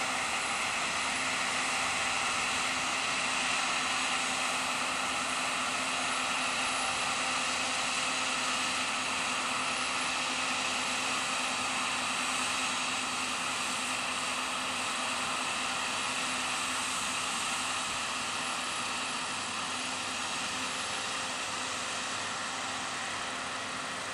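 Claas Lexion 670 combine harvester threshing rapeseed: a steady drone of engine and threshing machinery with several constant high whining tones, easing slightly toward the end as it moves away.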